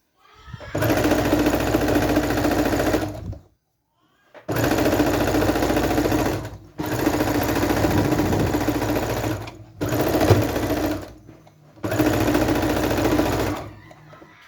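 Electric sewing machine stitching a seam in five runs of one to three seconds each, stopping briefly between runs.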